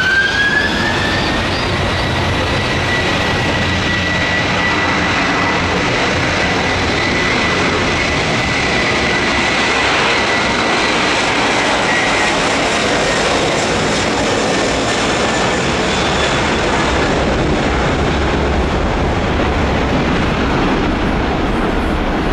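Jet airliner engines running at high power: a steady loud rush of engine noise with a high whine that finishes climbing in pitch about a second in, holds steady, and fades out after about twelve seconds.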